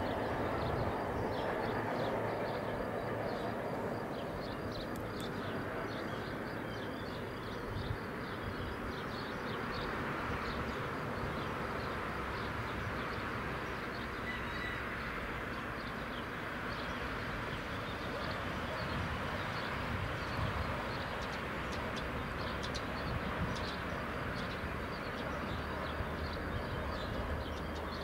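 Steady outdoor background rumble, with scattered short bird chirps over it.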